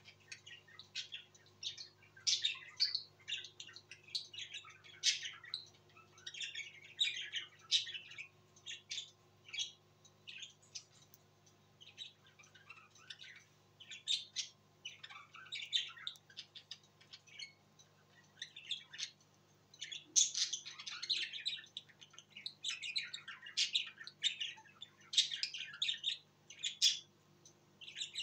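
Pet budgerigars chattering in their cage: a near-continuous run of short, high chirps and squawks.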